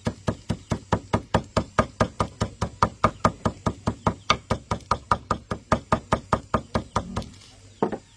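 Rapid, even knocking, about five knocks a second, that stops near the end with one last knock.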